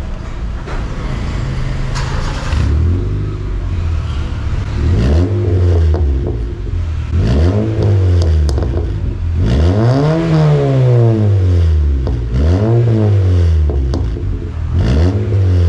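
Honda Fit 1.5's four-cylinder engine revved about five times, each rev rising and dropping back, heard at the tailpipe of a sport exhaust whose intermediate and rear mufflers have been replaced, with a stainless tip.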